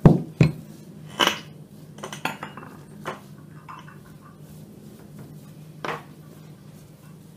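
Metal spoon clinking and knocking as walnut filling is spread over rolled-out dough: a handful of sharp clinks, the loudest in the first second and a half, with lighter ones after.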